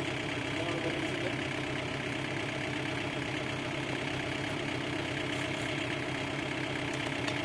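Stihl MS 382 chainsaw's two-stroke engine idling steadily at constant speed.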